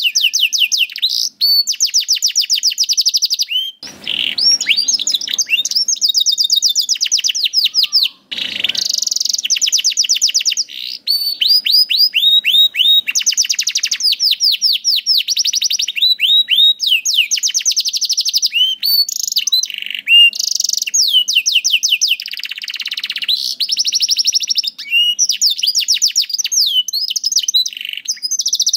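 Canary singing long, rapid trills of quickly repeated notes, phrase after phrase with only short breaks. Two brief rushing noises come in about four and eight seconds in.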